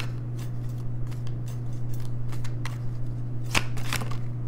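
Tarot cards being shuffled and handled: a run of quick, crisp clicks and flicks of card edges, with two sharper snaps near the end, over a steady low hum.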